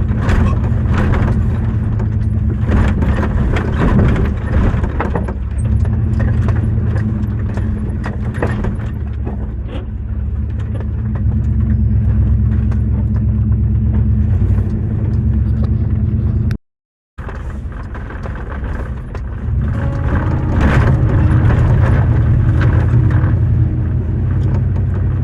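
Vehicle engine running steadily with many short knocks and rattles over it, the sound dropping out for a moment about two-thirds of the way through.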